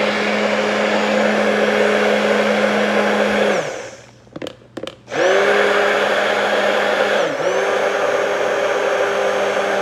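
Hand-held immersion blender running in a plastic jug of lemon curd, blending it smooth. It stops a little past three seconds in, with a few clicks during the pause, then spins back up after about a second and a half, dipping briefly in speed about seven seconds in before running on steadily.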